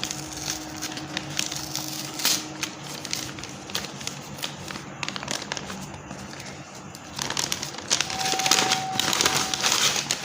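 Wrapping being crinkled and pulled off an individually packed item by hand: scattered crackles at first, then denser, louder crinkling near the end.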